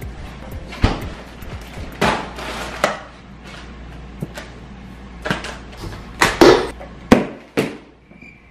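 A series of about eight irregular knocks and thuds, spaced unevenly, with the loudest ones coming close together a little after the middle and near the end.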